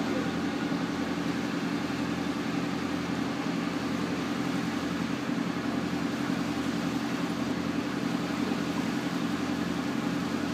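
Boat engine running steadily, a constant even hum heard on board.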